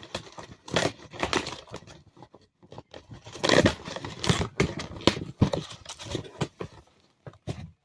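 Packaging being torn open and rustled by hand: a run of irregular tearing and crinkling noises, loudest around the middle and thinning out near the end.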